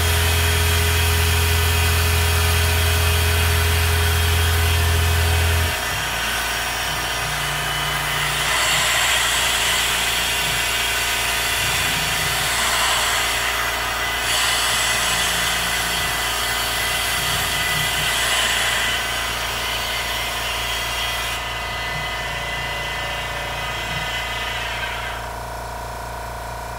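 PM-25MV CNC milling machine cutting an aluminium soft jaw: a steady spindle motor whine under a hiss that grows louder in stretches. A deep hum drops out about six seconds in. Near the end the hiss stops and the spindle's pitch falls as it spins down.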